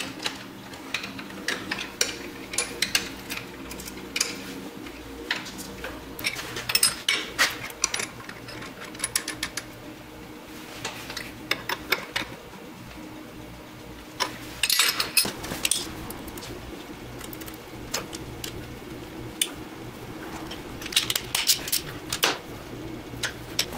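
Scattered clicks and metallic clinks of hand tools and metal parts being handled, coming in clusters with short pauses between, over a faint steady hum.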